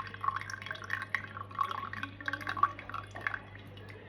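Water being poured into a container, an irregular run of splashing and dripping that stops near the end.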